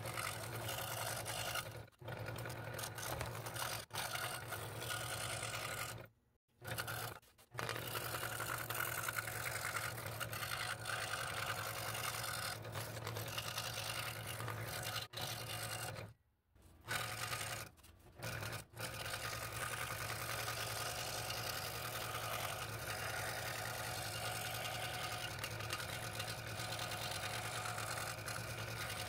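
Scroll saw running with its blade cutting through stacked wood, a steady machine hum under the cutting. The sound cuts out completely for a moment twice, about six and sixteen seconds in.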